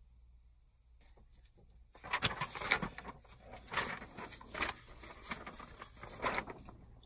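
Paper instruction manual being unfolded and handled, rustling in irregular bursts that start about two seconds in and fade near the end.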